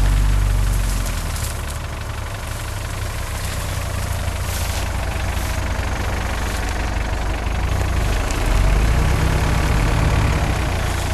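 Off-road SUV engine running under load as the stuck vehicle pulls itself free. A steady low rumble eases about two seconds in and swells again near the end.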